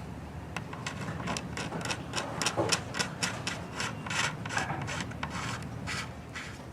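Short, quick strokes of a bent scraper blade shaving excess hardened fill off a ding repair in a nitrocellulose-lacquered top, about four scrapes a second, levelling the fill flush with the finish.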